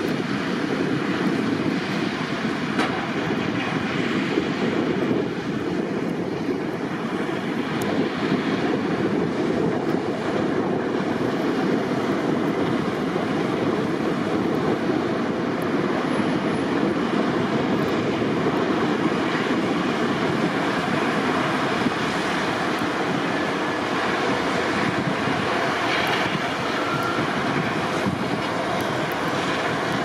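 Heavy snow-clearing machinery running: a steady, even engine and machine noise with no breaks.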